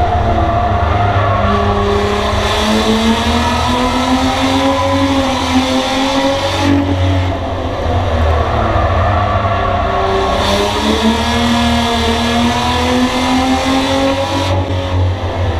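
Bomber-class race car engine heard from inside the stripped-out cabin at racing speed. Its pitch climbs for several seconds and then drops, twice, under full throttle and then lifting off, over steady road and wind noise.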